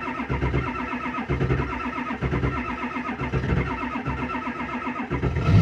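Starter cranking a cold 2002 Ford F-350's 7.3 L Power Stroke V8 turbo diesel, with a slow rhythmic thump of compression strokes. It gets louder near the end as the engine begins to fire without catching. The owner suspects fuel gelling rather than the glow plugs behind the hard cold start.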